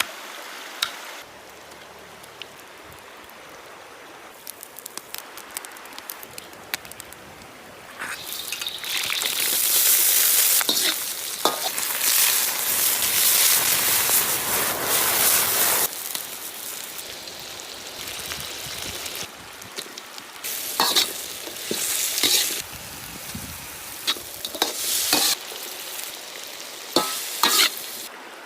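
Food frying in hot oil, sizzling and crackling. The hiss swells into a loud, long burst about eight seconds in, then settles, with a few shorter loud surges near the end.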